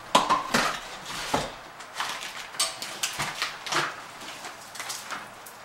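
Irregular clatter of knocks and clinks from hard building materials and parts being handled and pulled apart in demolition work.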